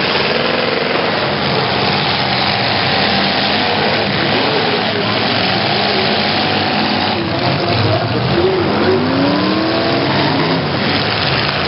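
Several demolition derby cars' engines running and revving at once, their pitches rising and falling against each other over a steady, loud din.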